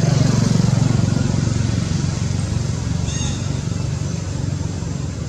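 A motor vehicle's engine running close by, loudest at the start and slowly fading as it moves away. About three seconds in there is a short high chirp.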